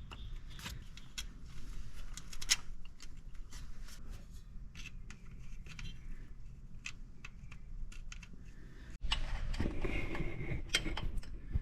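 Irregular metallic clicks and clinks of hand tools and bracket hardware being handled during shift-linkage work under a Jeep. The clatter gets louder and busier from about nine seconds in.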